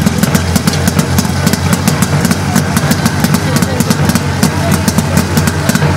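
Portable fire pump's petrol engine idling steadily with a fast low throb, warmed up and ready for the fire attack.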